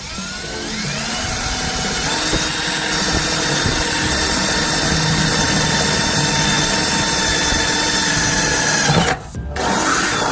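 Power drill spinning up with a rising whine, then running steadily as it bores a hole through a car bumper; it stops briefly near the end and starts again.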